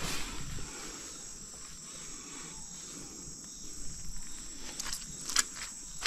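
Insects singing steadily in a high, even tone, with a few footsteps and rustles in the undergrowth just at the start and again around four to five and a half seconds in.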